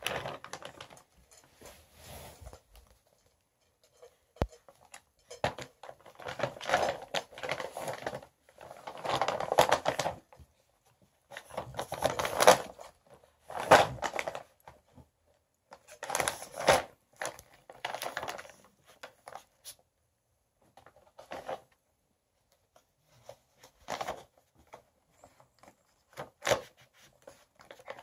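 Plastic Whimzees dog-treat bag crinkling and rustling in irregular bursts as a small dog noses and paws at it, trying to get it open. The bursts are busiest in the middle and grow sparser near the end.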